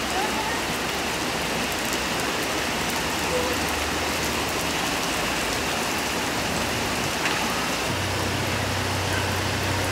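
Heavy rain pouring down, splashing on pavement, soil and leaves: a steady even hiss. A low steady hum joins in near the end.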